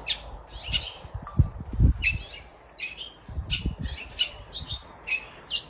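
Small songbirds giving short, sharp chirping calls over and over, the alarm calls of birds mobbing a perched hawk. A few low thumps sound under them.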